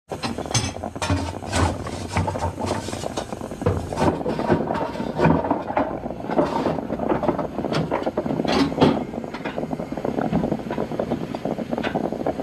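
Narrow-gauge steam locomotive and train clanking and knocking irregularly, with metallic clatter over a steady low rumble.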